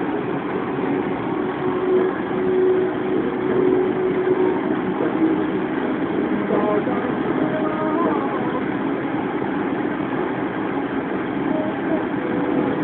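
Steady engine and road noise heard from inside the cabin of a moving car.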